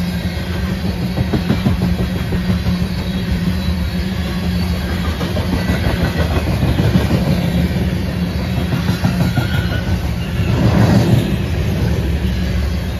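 Loaded coal train's gondola cars rolling past: a steady rumble of steel wheels on the rails with rapid clicking over the rail joints. It swells louder for about a second near the end.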